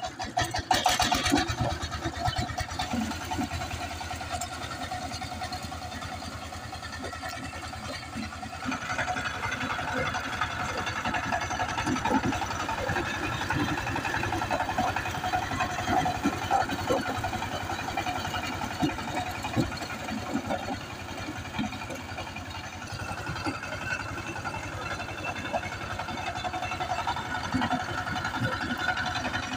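Single-cylinder diesel engine of a 25 HP two-wheel power tiller running under load as its rotary tiller churns dry soil, with a fast, steady knocking beat. It is loudest in the first couple of seconds and grows louder again about eight seconds in.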